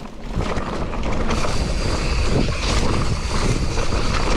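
Wind buffeting an action camera's microphone while riding, a loud rumbling noise that swells about half a second in and stays steady.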